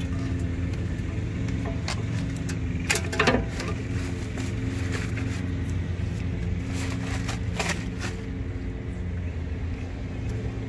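A car engine idling steadily, with a few short sharp clicks and knocks from parts being handled, around three seconds in and again near seven seconds.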